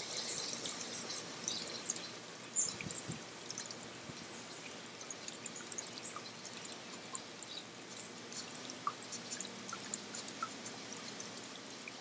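Garden water feature trickling over stones into a shallow pool: a steady flowing hiss dotted with many small drips. A brief knock sounds about two and a half seconds in.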